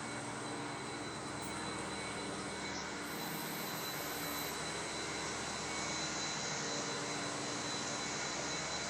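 Industrial machinery running steadily: an even, unbroken noise with a constant hum.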